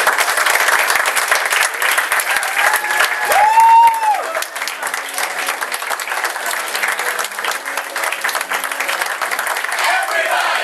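Theatre audience applauding and cheering, with a loud high cheer about three and a half seconds in; voices start singing near the end.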